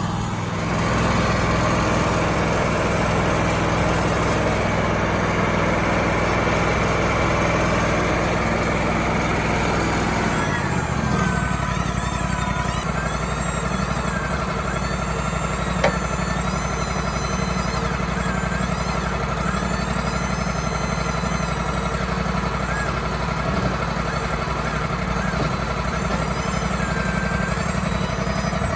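Wood-Mizer LT35HD portable band sawmill's engine running at speed, then slowing to a lower, steadier pace about ten seconds in.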